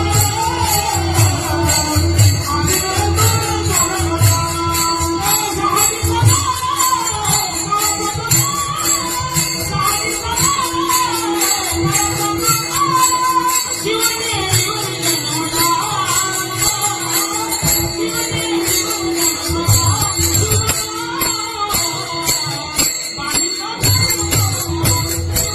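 Marathi varkari devotional music: a wavering melody over a steady held drone, rapid jingling of small cymbals and a low drum beat. The drum drops out for several seconds around the middle and briefly again near the end.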